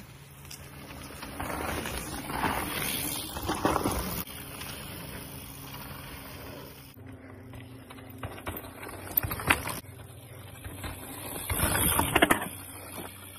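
Electric mountain bikes riding past on a dirt forest trail: knobby tyres crunching and rushing over the dirt, swelling as each rider passes close, once a few seconds in and again near the end.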